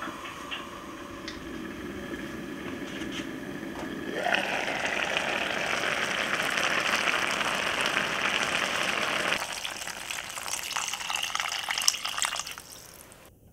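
Water being poured into a cast-iron pot of vegetable soup. The gush starts about four seconds in with a brief rising sweep, runs loud and steady for about five seconds, then eases to a lighter splashing before stopping near the end.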